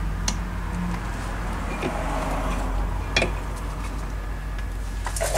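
Light clicks of metal engine parts being fitted by hand onto a Tomos A35 moped engine case, with sharper clicks about a third of a second in and about three seconds in, over a steady low hum.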